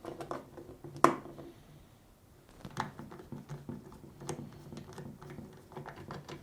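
Light, irregular clicks and scrapes of a metal mounting bracket and screws being fitted to a plastic ice maker and turned in with a nut driver, with one sharp click about a second in.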